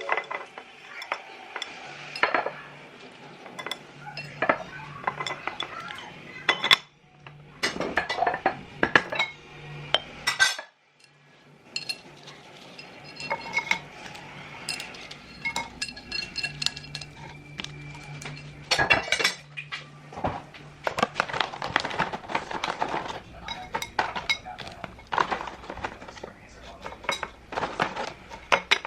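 Dishes and cutlery clinking and clattering as they are handled, in many short irregular knocks, with brief pauses about 7 and 11 seconds in.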